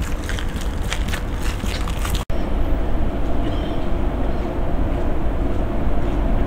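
DB class 232 'Ludmilla' diesel locomotive running with a steady low rumble and a steady drone; the sound drops out for an instant about two seconds in.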